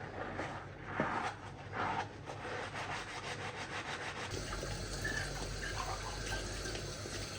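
Rubbing and scraping with a couple of knocks, then from about four seconds in a steady rush of running water, as from a tap.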